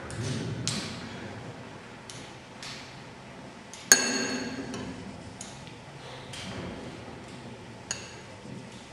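A sharp metallic clink about four seconds in, ringing briefly, then a smaller clink near the end, with soft knocks of footsteps and shuffling between them.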